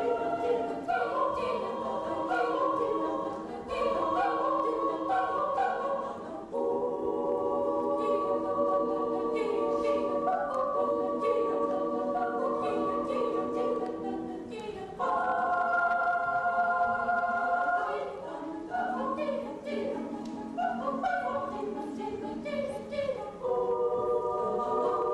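Children's choir singing in several parts, holding long chords that change every second or two.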